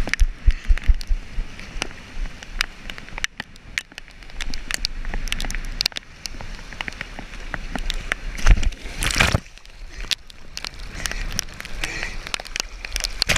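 Wind-driven lake waves sloshing and splashing at a rocky shore, with gusts buffeting the microphone and many sharp taps of water drops hitting the camera. A louder splash comes about nine seconds in.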